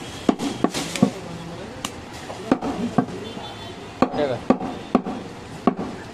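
Heavy curved butcher's cleaver chopping goat leg meat on a round wooden chopping block. About a dozen sharp chops come at an uneven pace.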